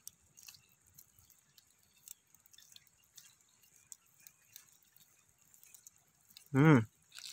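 Faint wet squishes and light ticks of a small knife scoring a raw chicken breast and pressing it into tandoori masala paste on a plastic sheet. Near the end a person makes one short, loud voiced sound.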